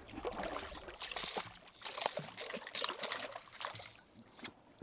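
Hooked piranha thrashing at the water's surface beside a boat: a run of splashes and sloshing water.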